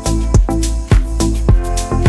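Background music with a steady drum beat, about two beats a second, over a bass line and sustained chords.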